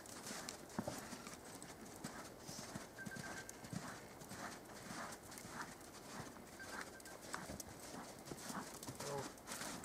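A horse's hooves striking soft arena dirt at a canter, a continuous run of hoofbeats.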